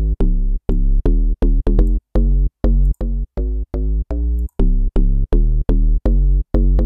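Serum deep house FM-style bass synth, its oscillators layered with an FM bass sample in the noise section and glued by Serum's compressor, playing a repeating pattern of short, staccato bass notes, about two to three a second, each opening with a sharp click. Oscillator A's tail still lets the notes ring a little long.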